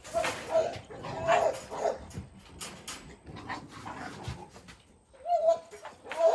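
A dog whining in short, high cries, several times over, with scattered knocks and rattles around them.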